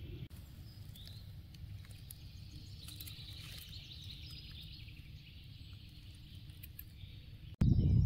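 Faint outdoor ambience: a few small bird chirps and calls over a low rumble of wind on the microphone. Near the end, loud wind noise on the microphone starts abruptly.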